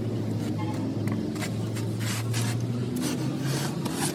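A steady low engine-like hum runs throughout, with a series of short metal scrapes and clicks from a thin wire pick working in a small port on the side of a rusty bottle hydraulic jack.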